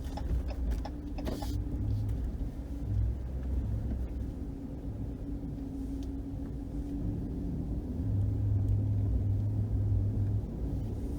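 Inside the cab of a Ram 1500 pickup: the 5.7 HEMI V8 engine and road noise make a steady low rumble while driving. The engine note swells about eight seconds in and eases off about two seconds later.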